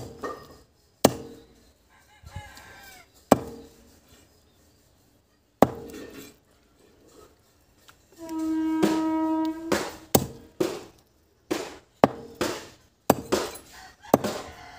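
Heavy knife chopping chicken on a wooden stump block: single sharp chops a second or two apart, then a quick run of them near the end. In the middle a rooster crows once, a steady call of about a second and a half.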